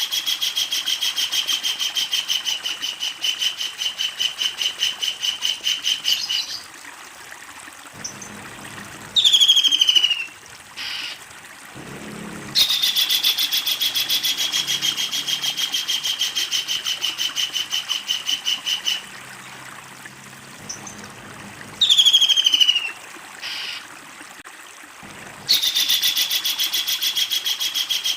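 Kingfisher giving its long, rapid rattling trill three times, each lasting about six seconds and dropping slightly in pitch. Between the trills come short, sharply falling calls.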